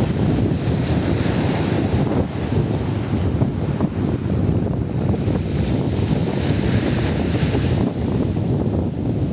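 Wind buffeting the microphone over small sea waves breaking and washing up the shore, a steady loud rushing noise.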